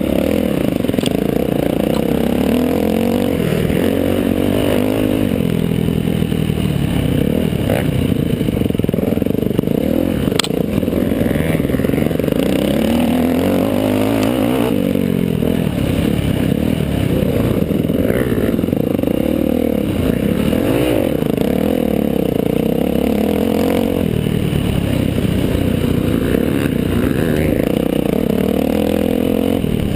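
Dirt bike engine under racing throttle, heard from the rider's helmet, its pitch rising and falling every few seconds as the throttle is rolled on and off. A couple of sharp knocks cut through about a third of the way in.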